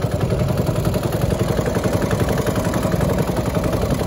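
Small wooden fishing boat's engine running steadily under way, with water rushing along the hull.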